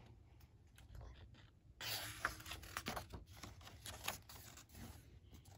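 A picture book's paper page being turned by hand: faint rustling and scraping with small clicks, starting about two seconds in and lasting a few seconds.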